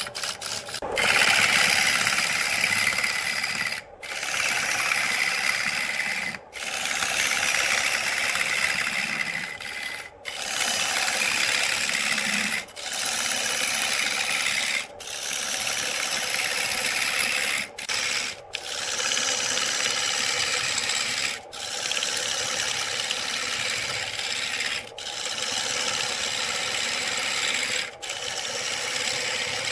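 A turning tool cutting into a spinning wooden blank on a wood lathe: a steady rasping scrape as shavings peel off. It is broken by short gaps every few seconds.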